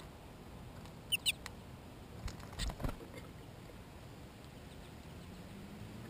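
Small birds feeding at a plastic seed feeder right by the microphone: scratchy pecking, with a cluster of sharp clicks and knocks a little after two seconds in. Two very short high chirps come about a second in.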